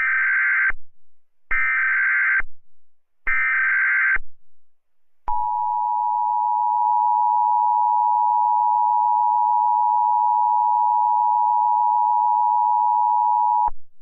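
Emergency Alert System tones: three short bursts of SAME header data, each about a second long, then after a pause the steady two-tone EAS attention signal (853 and 960 Hz), held for about eight seconds before it cuts off.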